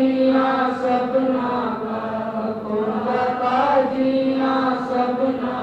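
Congregation chanting a line of a Gurbani kirtan hymn together, with a steady held note underneath.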